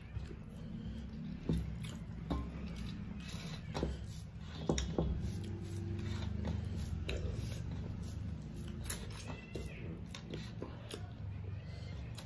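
Wet eating sounds: fingers squashing and mixing rice against metal plates, with chewing and mouth clicks as short sharp ticks throughout. A cat meows a few times in the second half.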